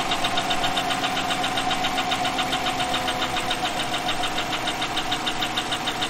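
GM L83 5.3-litre V8 idling, with a quick, even ticking over the engine sound. It is a slow top-end tick from the valvetrain, which the mechanic suspects is a lifter, on an engine with a misfire on cylinder 3.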